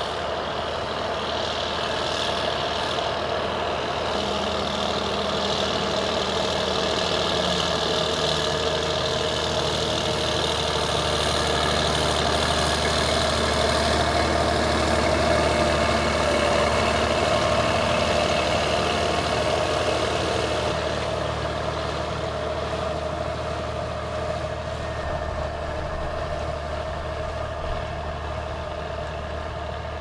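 Schlüter Profi Trac 3500 TVL tractor's 11.5-litre MAN diesel engine working under load, pulling a five-furrow plough through the soil. The engine grows louder to about halfway through as the tractor comes close, then slowly fades.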